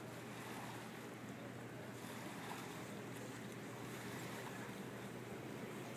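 Steady outdoor background noise: an even, low hiss with a faint low hum and no distinct events.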